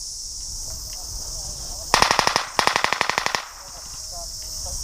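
Airsoft electric rifle firing two quick full-auto bursts, a rapid string of sharp clicks about two seconds in, a short pause, then a slightly longer second burst.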